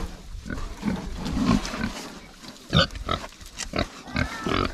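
Pigs grunting in short, irregular calls as they eat from a plastic trough, with chewing and snuffling.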